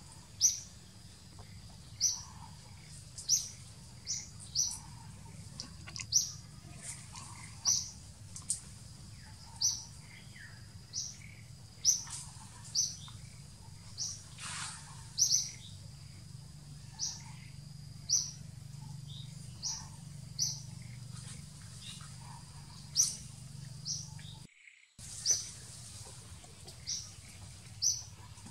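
A bird calling over and over, a short high chirp about once a second, over a steady low hum. The sound cuts out completely for a moment near the end.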